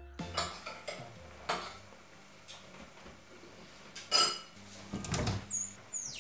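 Kitchen clatter of cutlery and dishes: a few light clinks, then a louder ringing clink about four seconds in and a few knocks after it. Near the end comes a high squeak that falls steeply in pitch as a cupboard door swings open.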